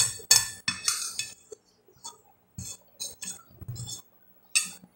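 Metal fork clinking against a glass plate in a series of short, sharp clicks, four close together in the first second and softer ones after.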